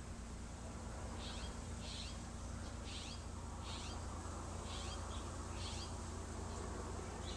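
Short high chirps repeated roughly once a second, over a low steady rumble.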